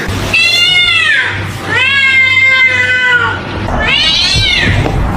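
A cat meowing three times: long, drawn-out meows, the middle one the longest, each bending up and falling away in pitch.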